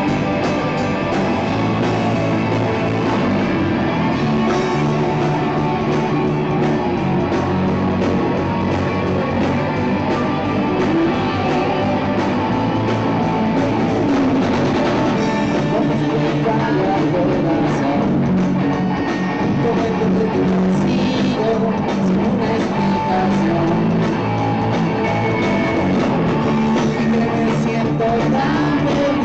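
Live rock band playing: electric guitars, bass guitar and drum kit at full volume, going steadily.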